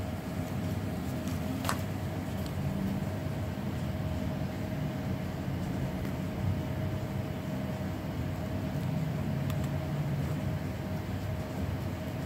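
Steady low background rumble with a faint constant hum, and a single sharp click about two seconds in.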